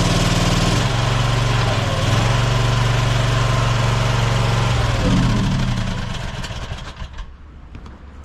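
Small skid steer's engine running hard, its pitch dipping and rising as it works. The revs drop about five seconds in and the engine sound fades away over the next two seconds.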